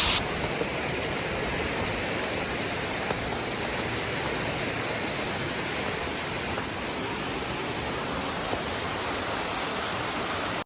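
Waterfall's falling water, a steady even rush.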